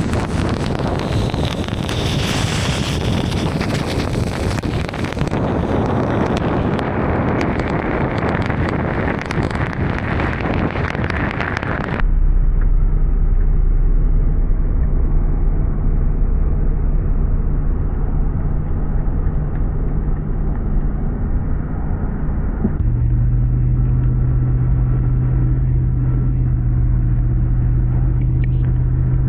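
A truck driving on a snow-covered highway, heard from inside the cab: steady tyre, wind and engine noise. For the first twelve seconds it is a broad rushing sound. It then changes abruptly to a duller steady engine drone, which grows stronger about 23 seconds in.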